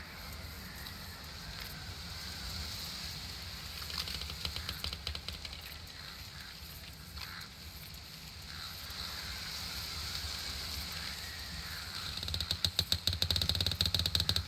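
Outdoor nature ambience: a steady soft background with a few short chirps and rapid ticking trills, the trills loudest near the end.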